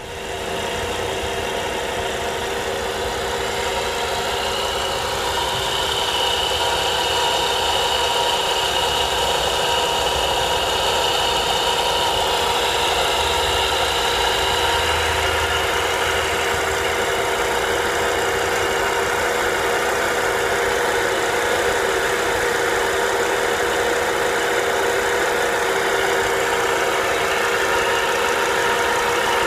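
Volvo V70R's turbocharged five-cylinder engine idling steadily, with a steady high whine over it, a noise which the owner blames on the alternator, probably a bad bearing.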